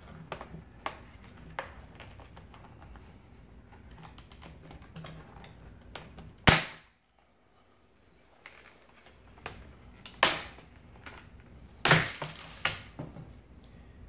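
Plastic clips of an Acer Predator Helios 300 laptop's bottom cover clicking and snapping loose as the tight cover is pried off by hand. Small ticks run throughout, with sharp cracks: the loudest about six and a half seconds in, and several more in the last few seconds.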